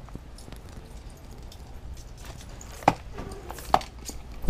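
Small cruiser skateboard rolling over a smooth tiled floor: a steady low wheel rumble, with two sharp clicks a little before and just after three seconds in, and a loud thump at the very end.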